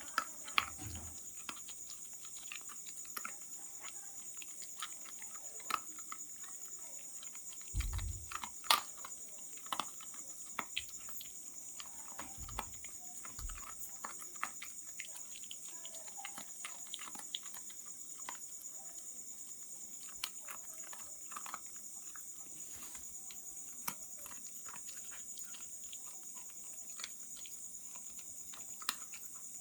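A dog crunching dry kibble: many short, irregular crunches and clicks, with a few dull low knocks about eight and thirteen seconds in. A steady high-pitched tone runs underneath.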